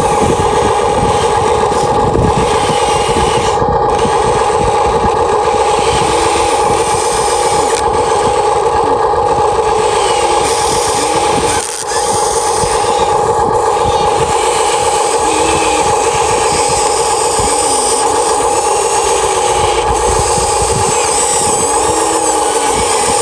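Huina 1593 RC excavator's electric motors and gearboxes whining steadily as it works, with a brief drop in the sound about halfway through.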